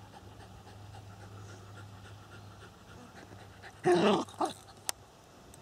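Small dog panting softly as it chews on something in the grass. About four seconds in there are two short, loud pitched sounds, followed by a single sharp click.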